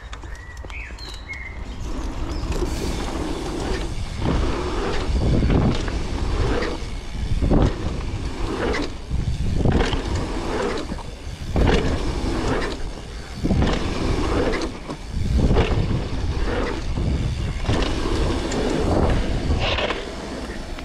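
Downhill mountain bike riding a dirt trail: tyres rumbling over the dirt, with the bike rattling and knocking at irregular intervals over bumps and jump landings, and wind buffeting the microphone.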